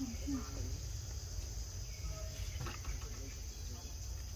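Steady high chirring of insects over a low rumble, with a short falling call right at the start and a few faint clicks.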